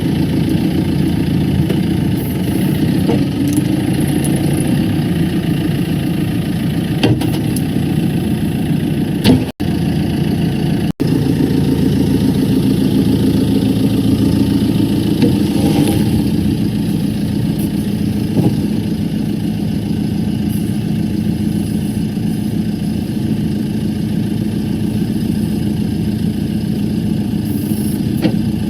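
The diesel engine of a 2013 JCB backhoe loader idling steadily, with two very brief dropouts about ten seconds in.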